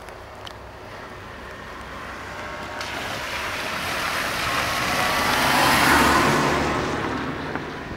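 A car driving past. Its engine and tyre noise swells from about three seconds in, is loudest around six seconds, then fades away.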